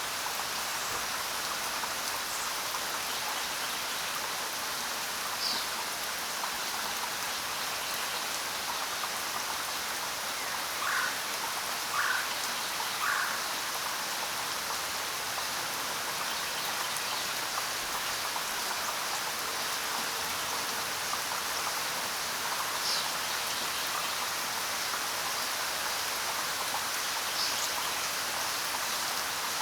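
Steady rain falling, an even hiss of drops. A few brief chirping calls stand out over it, three in quick succession about eleven seconds in.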